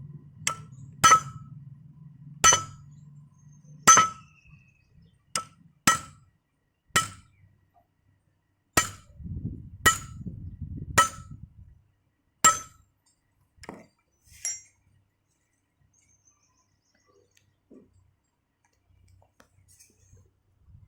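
Hammer striking metal rotavator parts during oil-seal work: about a dozen sharp, ringing blows at uneven intervals, then they stop.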